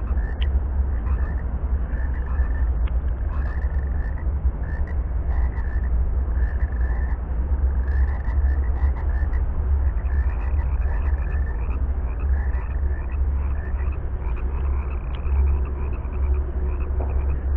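Frogs calling with short croaks repeated about once a second. About ten seconds in, higher-pitched calls come more quickly. A steady low rumble runs underneath.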